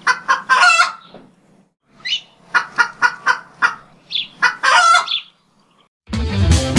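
Chicken clucking in a string of short calls, with two longer squawks. Rock music with guitar starts suddenly near the end.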